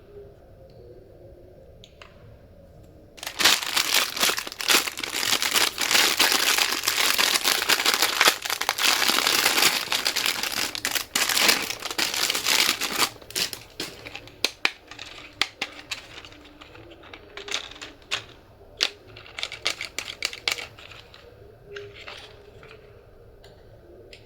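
Crinkly material being crumpled and torn by hand, a dense crackling that starts about three seconds in, lasts some ten seconds, then thins to scattered crackles and clicks.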